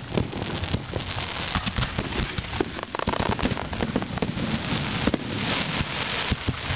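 Aerial fireworks display: shells bursting overhead in quick succession, with many sharp pops and bangs over a continuous hiss of burning stars that grows louder about five seconds in.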